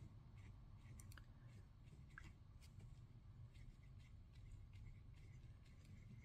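Faint scratches and light ticks of a fountain pen's Omniflex flex nib moving over paper, a soft stroke every second or so over a low room hum.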